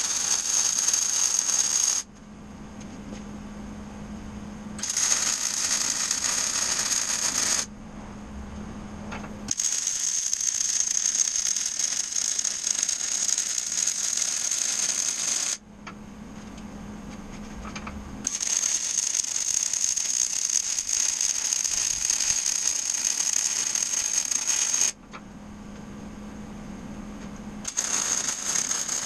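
MIG welder arc crackling as weld beads are laid on steel strut channel, in five separate runs lasting about two to seven seconds each. A low hum fills the short pauses between the beads.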